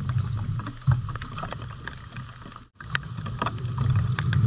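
Rain and wind rumbling on the microphone, with scattered sharp taps; the sound cuts out for an instant about three seconds in.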